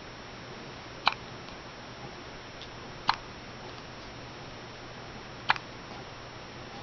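A newborn baby hiccuping three times, each hiccup a short sharp hic, the three about two seconds apart.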